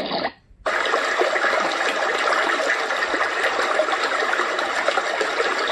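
Renpho sound machine playing a recorded running-water nature sound, steady and hissy. It cuts out for about half a second near the start as it switches to the new sound.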